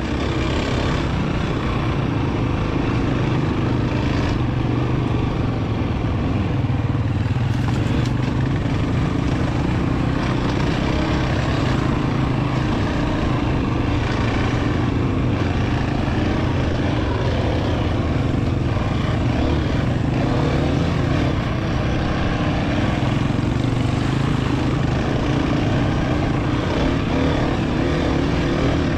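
Dirt bike engine running while riding, heard close up from the bike itself, its note wavering up and down with the throttle over a steady rushing noise.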